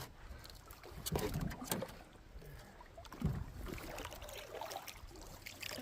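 A canoe being paddled: paddle strokes in the water, with several sharp knocks about a second in and a dull thump a little past halfway.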